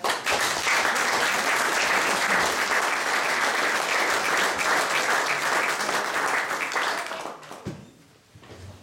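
Audience applauding, starting at once and dying away about seven seconds in.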